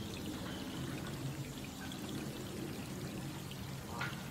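Steady rain falling on pond water, an even hiss of drops, with a low steady hum underneath and a brief higher sound about four seconds in.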